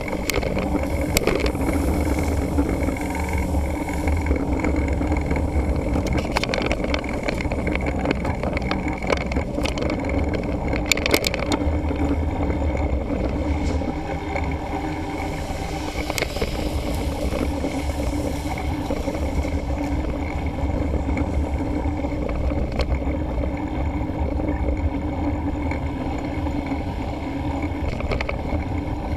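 Mountain bike riding along a paved road, heard through a camera mounted on the bike: a steady low rumble of wind and tyres on the microphone, with scattered clicks and rattles over bumps, most of them in the first dozen seconds.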